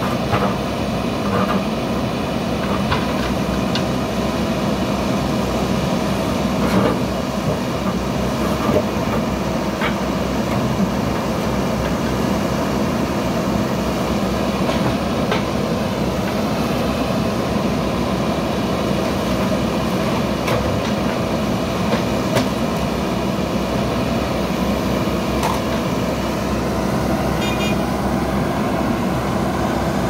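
Diesel engines of JCB backhoe loaders running steadily while digging. Now and then a sharp knock sounds as a bucket strikes the broken concrete slab and rubble.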